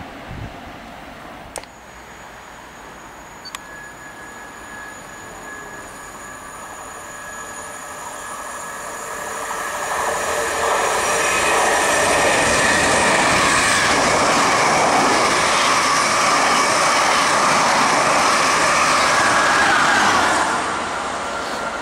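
An intercity train led by a driving van trailer approaches and passes through the station at speed. A steady high whine is heard as it comes up the line, then a loud rush of wheels and coaches builds from about eight seconds in. The rush stays loud for about ten seconds and falls away sharply near the end as the train clears.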